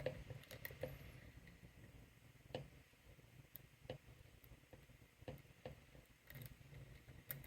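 Faint, irregular small metal clicks of a hook pick working the spool pins of a Lockwood 334B45 padlock, held under tension in a false set.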